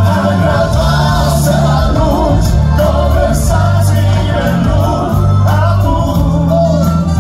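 Men singing a song live into handheld microphones, backed by a live band with double bass and drums.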